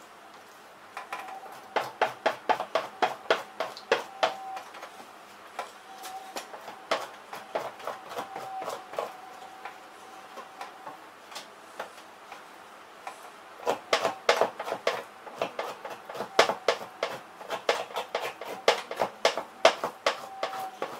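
Two-handled fleshing knife scraping fat and flesh off a beaver hide stretched over a wooden fleshing beam: quick, short strokes, about three a second, in runs, with a pause a little past the middle.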